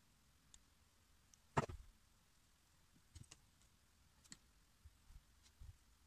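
Faint, scattered clicks and taps of handling as a wax occlusal rim on a plaster jaw model is turned in the fingers, with one louder knock about a second and a half in.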